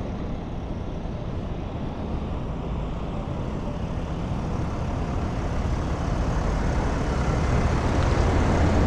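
Motorcycle engine running at low revs with a steady low rumble, growing a little louder toward the end.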